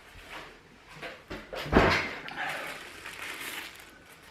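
Packaging being handled during unboxing: one sharp knock a little under two seconds in, then about a second and a half of rustling.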